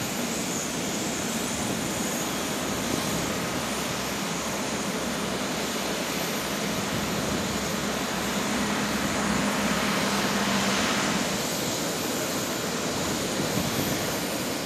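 Jet engines of an Airbus A350 running on the ground: a steady rushing hiss. It swells for a few seconds past the middle with a low hum and a faint whine, then settles back.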